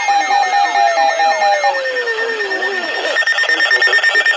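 Several electronic alarms sounding at once. A pulsing beep and a fast repeating sweep stop just under two seconds in, while a siren tone glides down. About three seconds in, a higher, rapidly pulsing alarm starts.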